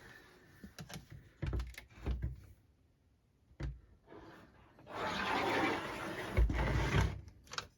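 Handling noises from a plastic box fan being moved and turned over: a few light knocks and clicks, then about two seconds of rubbing or scraping with a couple of low thumps near the end.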